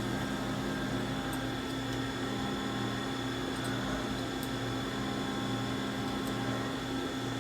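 Steady hum of running machine-shop equipment, several constant tones over an even whir, with a few faint light ticks.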